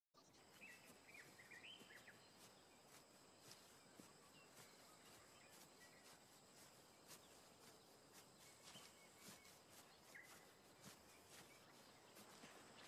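Faint bush ambience: a few scattered bird chirps over a thin, steady background haze, with light ticks here and there.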